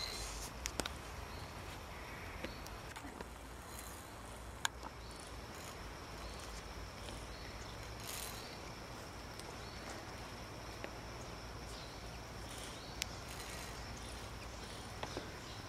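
Quiet forest ambience: a thin steady high insect-like buzz with scattered short high chirps over a low rumble. A few sharp clicks stand out, the loudest about a third of the way through.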